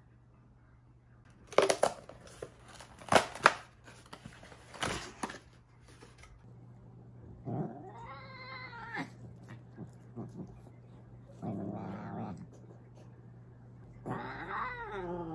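Several sharp knocks and rustles from handling, then a long-haired cat giving two long drawn-out yowls, one about halfway and one near the end, as it is held and hand-fed against its will.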